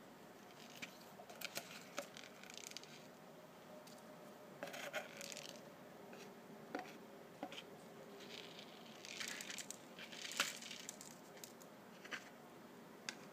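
Light handling noises: a clear plastic container knocking and scraping against paper, with scattered small clicks and brief rustles. The loudest click comes about ten seconds in.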